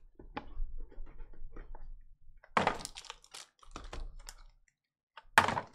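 Cardboard trading-card hobby box being handled and opened on a tabletop mat: a string of light taps and clicks, with a louder scrape or knock about two and a half seconds in and again near the end.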